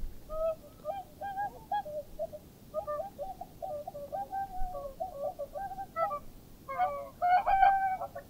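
Whooper swans calling: a run of short bugling notes, several birds overlapping and calling louder near the end.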